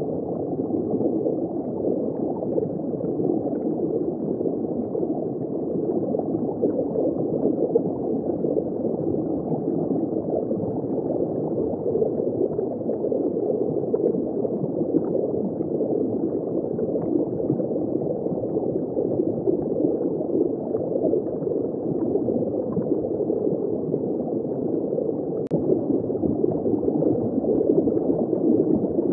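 Muffled, steady rush and gurgle of circulating water, heard from a camera submerged in a saltwater reef aquarium.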